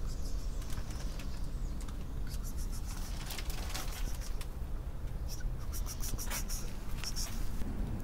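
Light rustling and scratching, a scattered series of short crackles that grows busier after the first couple of seconds, over a steady low outdoor rumble.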